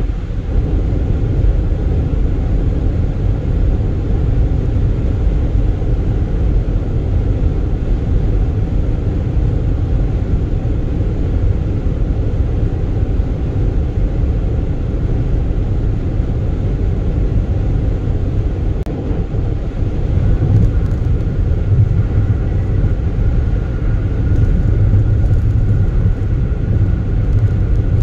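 Car cruising at highway speed, heard from inside the cabin: a steady low tyre-and-road rumble with engine drone, growing somewhat louder in the last third.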